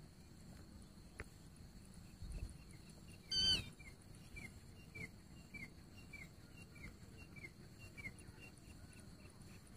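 Grey francolin calling: one loud, harsh note a few seconds in, then a run of short falling notes at about two a second.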